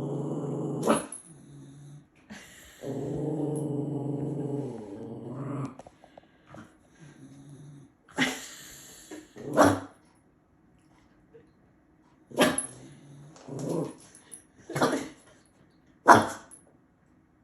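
A dog making long, drawn-out growly grumbles, then six short, sharp barks one to two seconds apart. These are demand vocalisations, pestering another dog for its toy.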